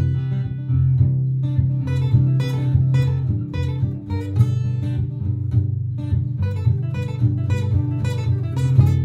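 Martin GPCPA4 acoustic guitar played through a looper: a repeating looped strummed backing with plucked single notes played over it.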